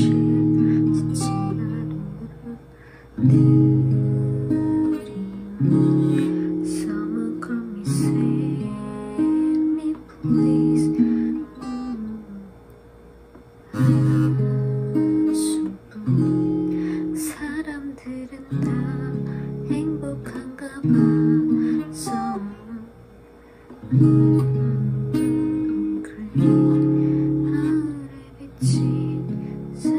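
White acoustic guitar strummed in chords by a beginner on her third day of practice, each chord struck and left to ring, changing about every two seconds with a few short breaks. A woman's voice sings along.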